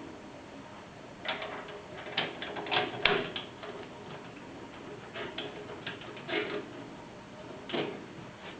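Plastic and metal computer-case parts being handled and fitted: an irregular run of clicks and knocks, the loudest about three seconds in.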